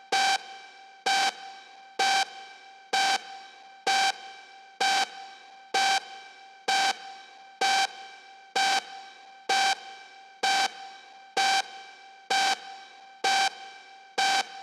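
Outro of an electronic dance track: bass and drums have dropped away, leaving one pitched synth note struck alone a little under once a second, each hit fading quickly, about sixteen times.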